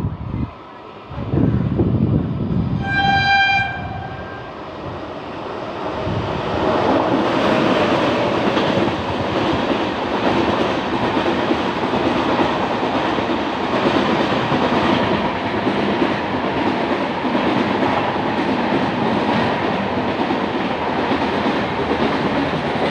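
A train horn sounds once, briefly, about three seconds in. Then a train runs past: a loud, steady rumble of wheels clattering over the rail joints that builds up and holds to the end.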